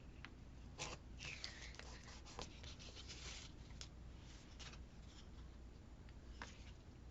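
Faint rustling of paper with a few light clicks and taps, from handling cut-out paper pieces while decorating a planner; the busiest stretch is between about one and three and a half seconds in.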